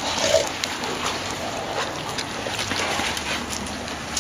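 Dogs playing together, with a short vocal sound from a dog just after the start, over a steady hiss and scattered small clicks.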